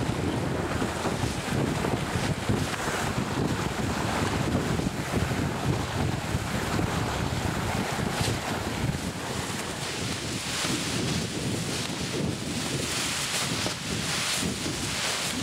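Wind buffeting the microphone over the rush of water along a sailboat's hull as it sails under gennaker.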